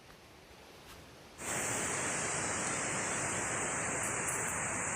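Near silence for about a second and a half, then a steady rush of flowing river water that starts abruptly, with a constant high hiss over it.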